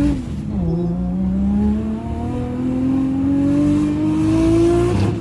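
Tuned Nissan Skyline R32's RB straight-six (about 500 whp) pulling hard under acceleration, heard from inside the cabin. The revs drop with an upshift about half a second in, then climb steadily through the next gear before another shift near the end.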